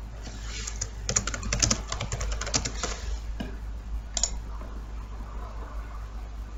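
Computer keyboard typing a quick run of keystrokes for about three seconds, followed by a sharper mouse click a little after four seconds in.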